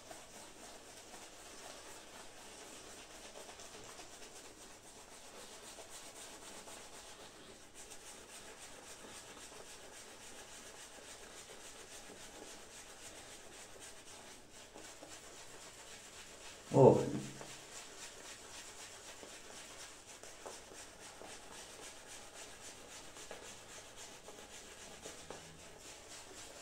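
Shaving brush scrubbing shave-soap lather over a man's face and neck: a faint, steady rubbing hiss. About seventeen seconds in there is one brief, louder voice sound.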